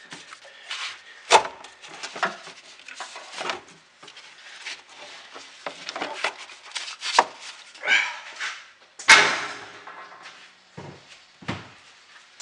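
Old car battery being worked loose and lifted out of a pickup truck's battery tray: its plastic case scrapes and knocks against the tray and engine-bay parts. There are scattered knocks and scrapes, the loudest about nine seconds in.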